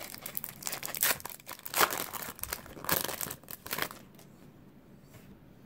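Wrapper of a baseball card pack being torn open and crinkled by hand, in a run of short crackling bursts that stop about four seconds in.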